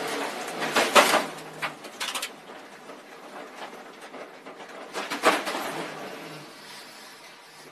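A car running off the road through a chain-link fence and brush, heard from inside the cabin: several loud crashing, scraping bursts in the first two seconds and another about five seconds in, with rumbling noise between.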